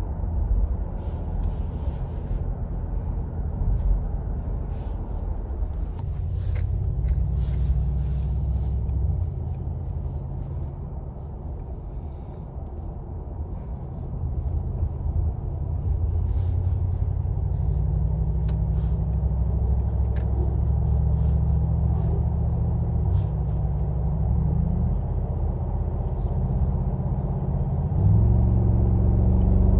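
Mercedes-AMG G63's twin-turbo V8 running under way at motorway speed, with steady engine and road rumble. It grows louder about halfway through, and the engine note steps up near the end.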